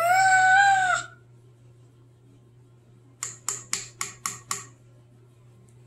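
A cat meows once, a call of about a second that rises and falls in pitch. About three seconds in, a metal measuring spoon taps six times in quick succession as baking powder is spooned from its can into the mixing bowl.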